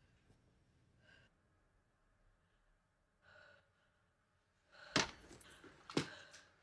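A woman's breaths and gasps, then two sharp, loud gunshots about a second apart, each with a short decaying tail.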